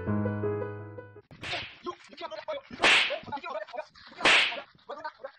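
Piano music stops about a second in, then a stick lashes down in sharp, whip-like swishing strikes, three of them about a second and a half apart.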